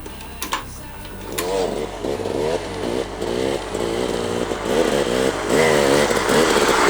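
Background music: a song with a wavering pitched melody that gets louder over the last few seconds.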